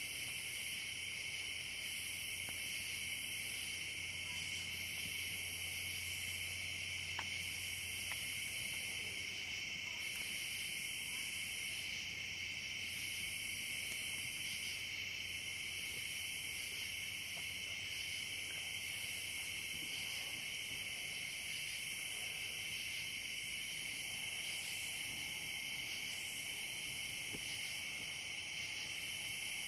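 Outdoor insect chorus, typical of crickets: a steady high trill, with a still higher-pitched chorus switching on and off every second or two.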